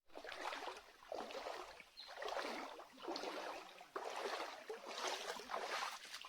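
Water splashing and sloshing in repeated surges, about one a second.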